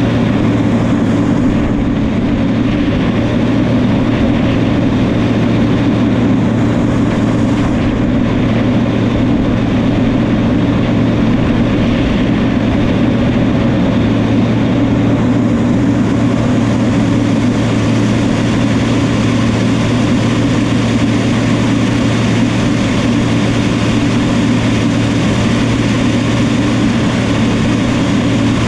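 A New Holland bulldozer's diesel engine running steadily with a deep, even hum.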